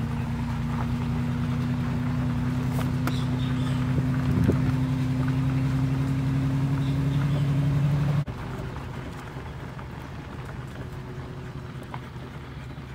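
Vehicle engine running with a steady hum that creeps slightly up in pitch, then cuts off abruptly about eight seconds in, leaving a quieter, even rumble of a moving vehicle.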